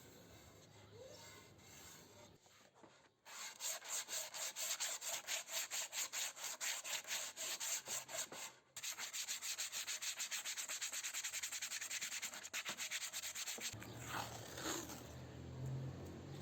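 Sandpaper rubbed by hand over the old wooden desk in quick back-and-forth strokes, about four a second. The strokes start about three seconds in, stop briefly near the middle, then carry on more evenly until shortly before the end.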